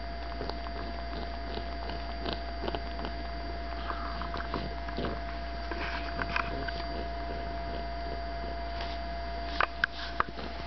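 Pug snuffling and making soft, irregular sucking sounds as it mouths a plush toy like a pacifier, over a steady low hum. A few sharp clicks near the end.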